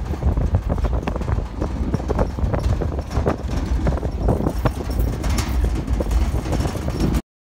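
A ute driving over a rough dirt track, its open steel tray rattling and knocking under a low rumble. The sound cuts off abruptly near the end.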